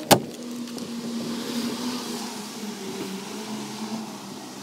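A single sharp click just after the start, then a motor vehicle's engine running steadily, its low hum drifting slowly down in pitch.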